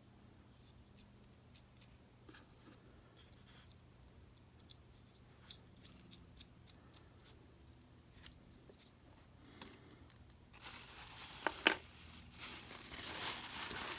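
Small, faint metallic clicks and taps of tiny nuts and hand tools being handled on a small clock motor. Near the end a louder rustling starts, with one sharp click.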